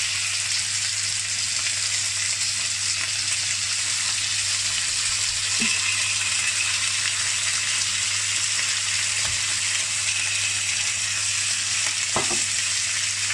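Lamb chops sizzling steadily in a very hot cast-iron skillet.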